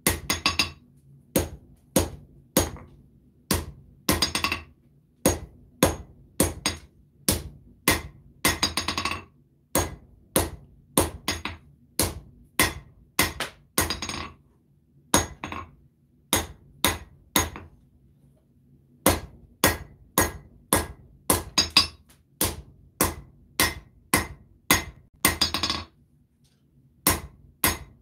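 Hand hammer striking red-hot 1095 high-carbon steel on an anvil, drawing out and shaping a knife blade's point. The blows come at about one to two a second, some ringing, with short pauses about two thirds of the way through and near the end. A steady low hum runs underneath.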